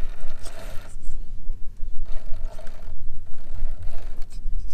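RC scale trial truck's electric motor and gearbox whirring in three short bursts as it crawls over logs, with tyres scraping on wood and dirt, over a steady low rumble.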